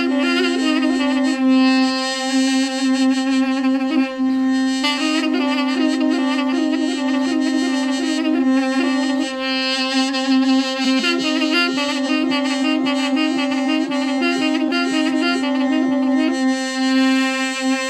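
Two mey (balaban), short double-reed wooden pipes, playing a dengbej melody: one holds a steady drone while the other plays a wavering, heavily ornamented tune above it.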